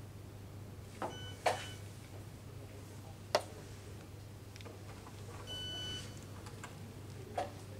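A few sharp clicks and knocks of a wooden chess piece being set down and the chess clock being pressed, with a short electronic beep around a second in and another about five and a half seconds in, over a steady low hum.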